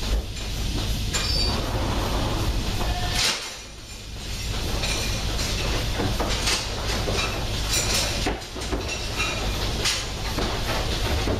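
Goat milking parlour machinery running: a steady low rumble with irregular metallic clinks and clatters. The rumble drops away briefly about three and a half seconds in.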